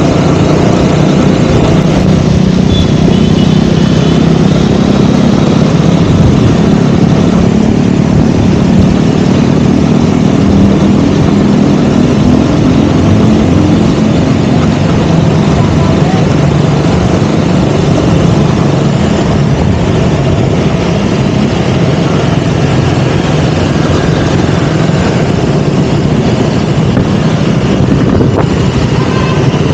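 KTM Duke 200's single-cylinder four-stroke engine running steadily as the motorcycle is ridden, its note rising and falling gently with the throttle, over a constant rush of noise.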